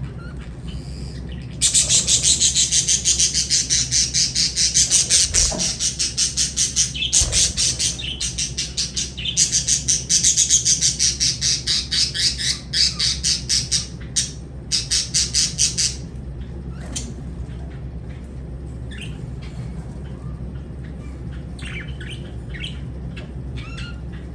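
Lovebird calling in a long run of rapid, loud, high-pitched chirps for about fourteen seconds, then a few quieter scattered chirps. A steady low hum runs underneath.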